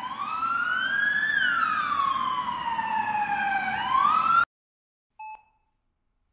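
Emergency vehicle siren wailing: the pitch rises, slides slowly down, climbs again and then cuts off abruptly. About a second later comes a single short electronic beep from a hospital patient monitor.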